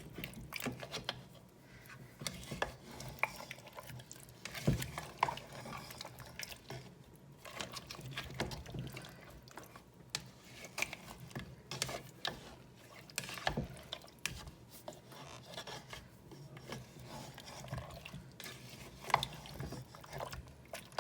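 A spoon stirring lamb curry with potatoes and water in a pressure cooker, the liquid sloshing while the spoon scrapes and knocks against the pot at irregular moments.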